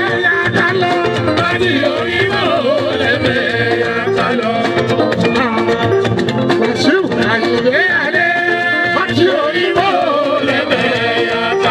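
Live Fuji band music, with a man singing lead into a microphone over the band.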